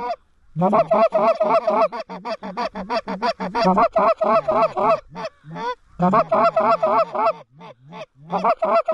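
Geese honking: fast runs of rapid honks and clucks, several a second, each run starting on a low note that breaks upward, with a thinner stretch of scattered honks past the middle.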